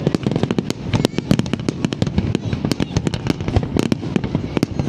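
Fireworks going off in a dense, irregular run of sharp cracks and bangs, many per second.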